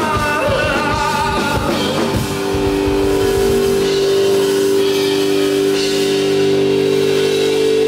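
Live rock band with electric guitars and drums: a sung line over the band, then about two seconds in the guitars settle into one long held, ringing chord over cymbal wash.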